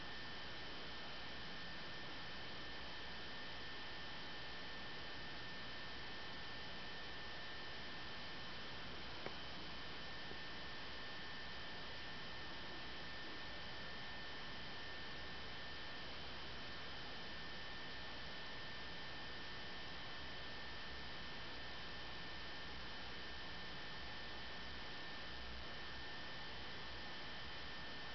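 Steady electrical hiss with a low hum and two thin, steady high-pitched whines, with no programme sound over it; one faint click about nine seconds in.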